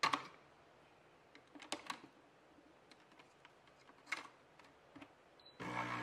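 A glass clinking and knocking as it is set under a capsule coffee machine's spout, with a few lighter clicks of handling. Near the end the machine's pump starts with a steady buzzing hum as it begins to brew.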